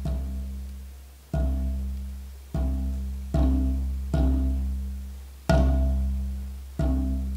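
A long wooden xylophone bar struck with a soft mallet six times at uneven intervals, sounding the same deep note each time. Each note rings and fades away before the next strike.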